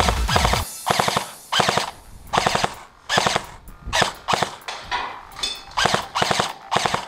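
Rapid automatic gunfire in short bursts, about one burst a second, after electronic music cuts off about half a second in.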